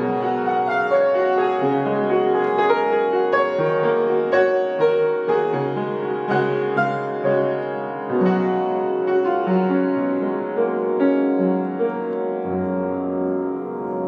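Upright piano playing a slow piece of held chords, the notes changing about once a second, with a deeper bass note added near the end.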